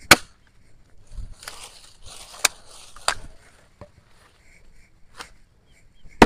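Dry wood being chopped for firewood: sharp single chops a second or more apart, with crackling and rustling of dry branches and leaves between the strikes.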